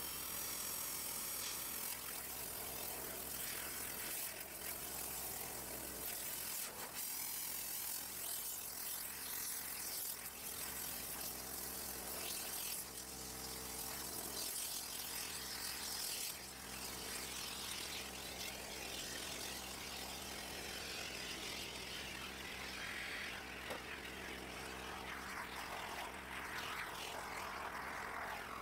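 An engine idling steadily, with a hiss over it that swells in the last few seconds.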